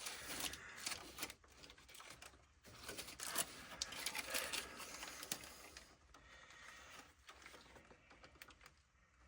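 Faint, irregular clicks and rustles of a plastic cable tie being threaded and ratcheted tight around a wiring loom under a vehicle.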